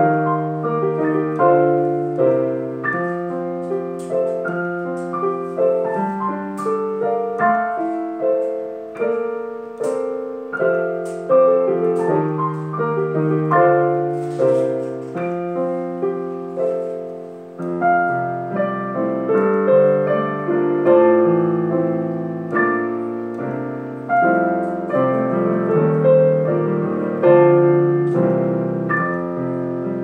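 Digital piano played four hands, a duet of melody over a bass line and chords. It pauses briefly about halfway through, then resumes with the bass moving lower.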